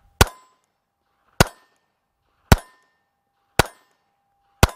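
Five pistol shots from a Heckler & Koch HK4 in .380, fired single action about one a second, with a faint ring from the hit steel plate between shots. The last shot empties the magazine and the slide locks open.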